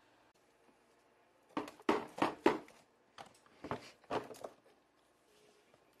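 A quick run of about eight sharp plastic clunks and clatters over some three seconds, from the Shop-Vac wet/dry vacuum's lid and canister being handled as it is opened.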